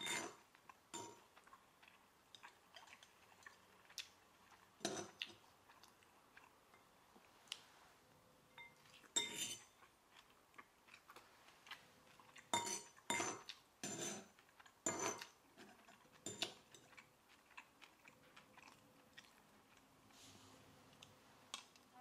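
Metal fork and spoon clinking and scraping against a pasta bowl as spaghetti is twirled and eaten: single short clinks a few seconds apart, with a quick run of four a little past halfway.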